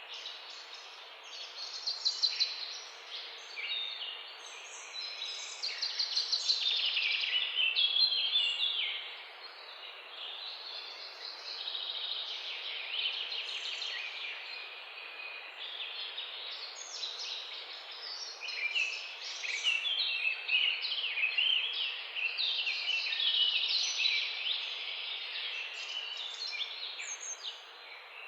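Birds chirping continuously, many quick high chirps and trills overlapping, over a faint steady hiss.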